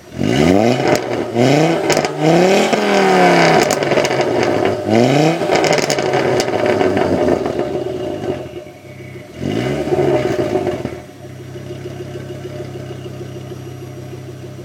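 Ford Focus RS engine blipped through a decat exhaust, its catalytic converter and middle silencer replaced by straight pipes but the original rear muffler kept. Several quick revs rise and fall in pitch, then the engine settles to a steady idle about eleven seconds in.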